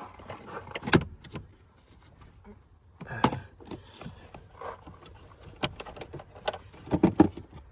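Scattered metallic clinks, knocks and rattles of hand tools and car parts being handled, with a few sharper knocks.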